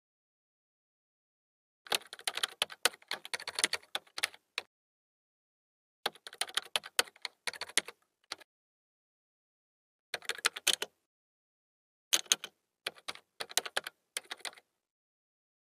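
Typing sound effect: rapid key clicks in four runs of a second to a few seconds each, separated by silence, as on-screen text is typed out letter by letter.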